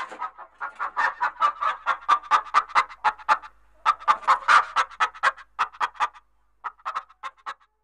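Chicken clucking: quick runs of short, sharp calls, several a second, breaking off briefly twice.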